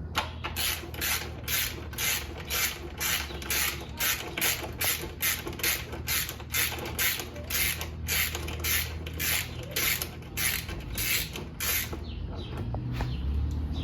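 Ratchet wrench clicking in steady strokes, about three a second, as a 5 mm Allen bolt is backed out. The clicking stops near the end.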